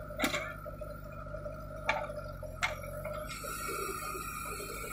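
JCB backhoe loader's diesel engine running steadily with a steady hydraulic whine, as the backhoe arm swings. Three sharp metallic clanks from the arm and bucket come in the first three seconds, and a high hiss rises over the last second and a half.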